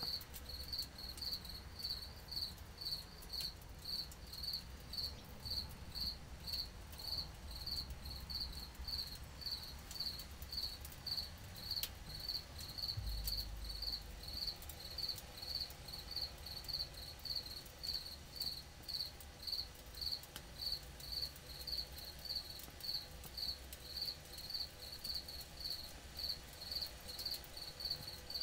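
A cricket chirping steadily, a short high chirp repeated somewhat under twice a second. A single low bump about halfway through.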